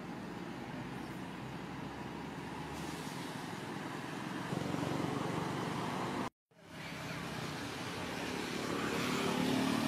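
Steady outdoor rumble of road traffic. It cuts out for a split second about six seconds in and grows louder toward the end.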